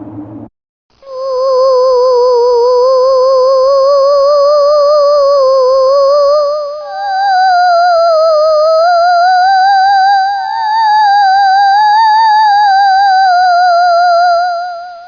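Eerie theremin-like tone with a wobbling vibrato, held for over ten seconds. It steps up in pitch about halfway through, then drifts slowly up and down, with a faint thin high whine above it.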